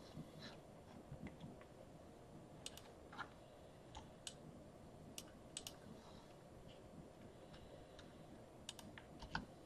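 Faint, irregular clicks and taps of a stylus on a tablet screen during handwriting, over near-silent room tone.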